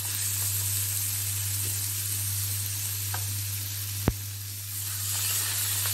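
Marinated fish fillets sizzling in melted butter on the hot ridged plate of an electric sandwich griller, a steady hiss over a low electrical hum. A single sharp click sounds about four seconds in.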